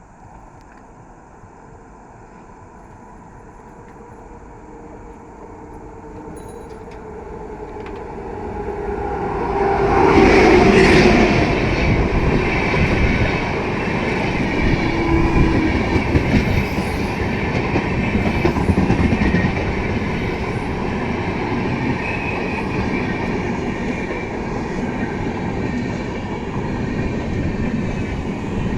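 An express passenger train hauled by a WAP-7 electric locomotive approaches and passes at speed. Its sound grows for about ten seconds and is loudest as the locomotive goes by. Then comes the steady running noise and clickety-clack of the coaches' wheels over the rail joints.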